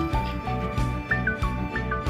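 Background music: a melody of short held notes stepping up and down over a steady beat and bass.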